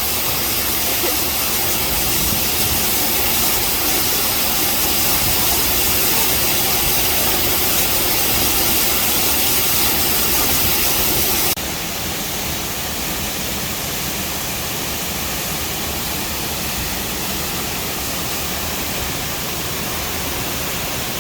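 Large waterfall's steady rush of falling water. About eleven seconds in it cuts abruptly to a quieter, steady rushing noise.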